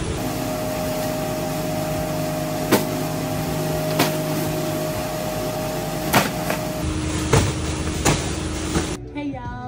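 Steady road and engine noise inside a moving car, with a few sharp clicks or knocks scattered through it. Near the end it gives way to a voice and music.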